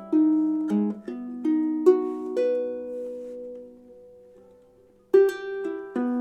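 Tenor harp ukulele with a Sitka spruce top and zebrawood body, played with single plucked notes; a note about two seconds in is left to ring, fading slowly for over two seconds almost to silence, before plucking starts again near the end.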